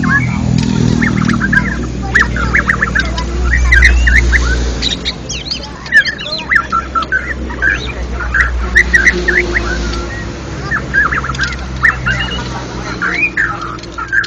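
White-rumped shamas (murai batu) singing: rapid, overlapping whistled notes and chirps from several birds at once. A low rumble runs underneath, strongest a few seconds in.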